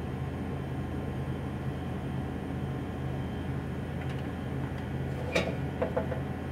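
Condenser fan motor of a True GDM-26 reach-in cooler running with a steady low hum while the compressor stays off, which the technician takes for a fault in the compressor or its starting components. A few sharp clicks about five seconds in as parts beside the compressor are handled.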